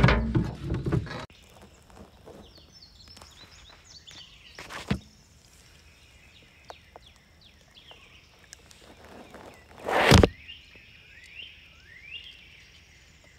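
Quiet outdoor ambience with small birds chirping in the background, broken by short handling knocks, the loudest about ten seconds in. A low rumble of wind or handling noise opens it and stops after about a second.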